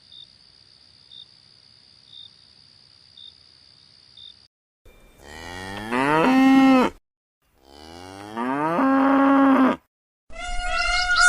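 A cow mooing twice, each moo about two seconds long, rising in pitch and then holding steady. Before the moos there is a faint, steady high-pitched whine with a short blip about once a second. Near the end a different, higher, wavering animal call begins.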